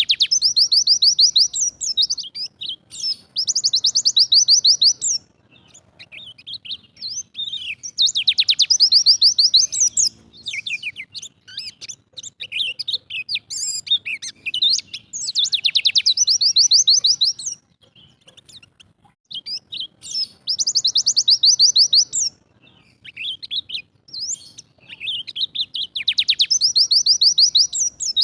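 White-eye (pleci dakun) singing its fast trilling 'tembakan' song: phrases of rapid high notes about two seconds long, repeated every few seconds, with softer chirps in between.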